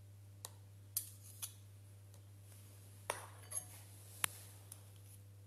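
A few light, scattered clinks and taps of a spoon against metal pastry moulds and the board as jam is spooned into pastry cases, the sharpest about four seconds in. A faint low steady hum runs underneath.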